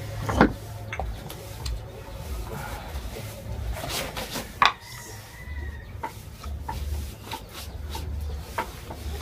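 Light clicks and knocks of a plastic lunch box and steel dishes being handled on a stone floor as the box is packed and its lid pressed shut, the sharpest knock about halfway through.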